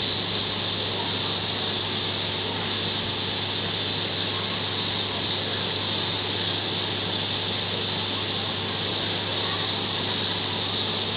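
Steady background noise with a low, even hum and no distinct sudden sounds.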